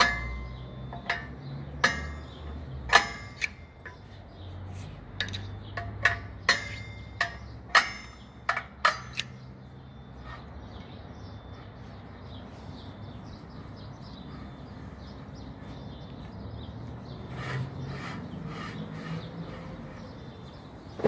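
Sharp metallic clicks and taps, each ringing briefly, about a dozen at irregular intervals in the first half and a few softer ones near the end, from a screwdriver working against a Nissan X-Trail's rear brake disc and handbrake shoe adjuster.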